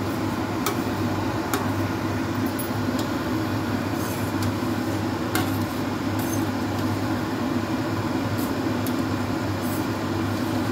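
A ladle stirring a thin tomato mixture in a stainless steel pressure cooker pot, clinking sharply against the metal about ten times, over a steady low hum.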